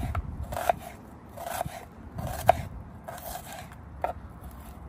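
Chef's knife slicing through an onion on a bamboo cutting board: about six unhurried cuts, a little under a second apart, each ending with a tap of the blade on the wood.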